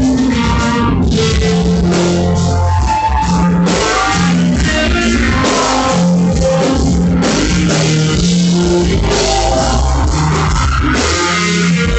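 Live rock band playing loud, with electric guitar and a drum kit, heard in the room.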